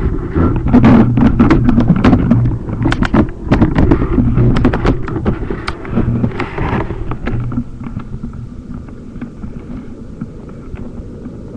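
A cat snoring right up against a computer's microphone, a low rumble that comes and goes with its breaths, mixed with loud knocks and rubbing from the computer being handled. The knocking dies away about eight seconds in, leaving a quieter steady hum.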